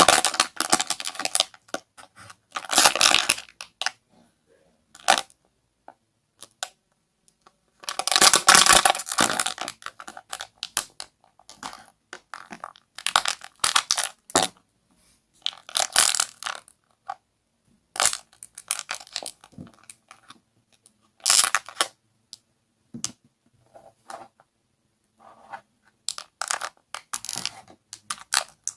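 Squishy toy ice being squeezed and dug through by hand: irregular bursts of wet crunching and crackling with short gaps and scattered small clicks between them.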